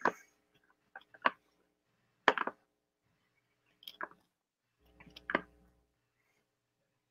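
A handful of short, sharp clicks, scattered a second or so apart, in an otherwise quiet room.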